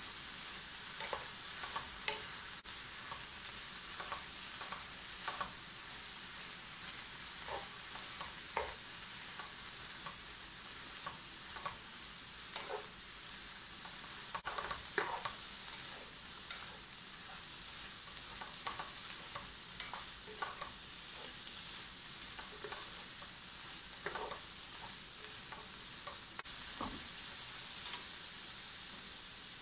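Bok choy and fried tofu sizzling in a nonstick frying pan as a wooden spatula stirs them. Steady frying hiss with irregular light knocks and scrapes of the spatula against the pan.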